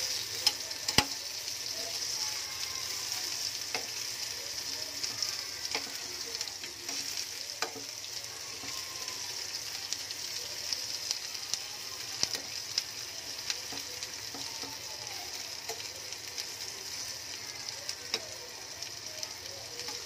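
Masala-stuffed brinjals sizzling steadily in hot oil in a frying pan, with a steel spoon clinking against the pan now and then as it moves them.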